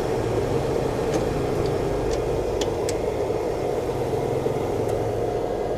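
Steady whirring hum of a running machine, with a few faint light clicks about two to three seconds in.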